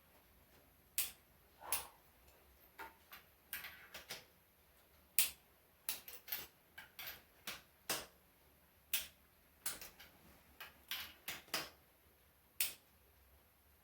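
Ratchet torque wrench tightening spark plugs to 25 N·m: a string of short metallic clicks at irregular intervals, sometimes several in quick succession.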